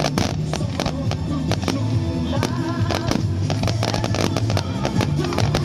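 Fireworks going off in quick succession, a dense run of sharp bangs and crackles, over music with steady sustained notes.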